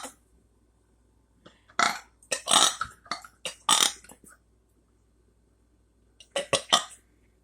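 A person burping: a run of short burps from about a second and a half in, then a few more near the end.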